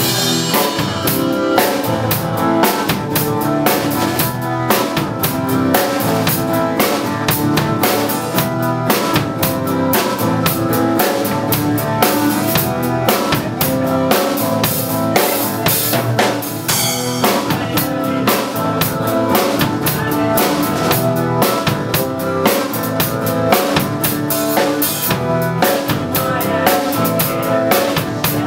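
Music with a driving drum kit: a steady kick and snare beat over pitched instruments.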